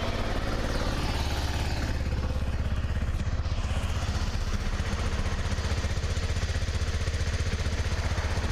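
Vehicle engine idling steadily just after a cold start in below-freezing weather, an even, fast pulsing.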